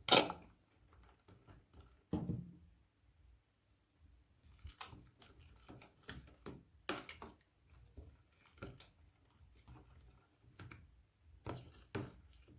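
Handling noises from slime making at a table: a sharp knock at the start, a duller thud about two seconds in, then a run of small irregular clicks, taps and squishes.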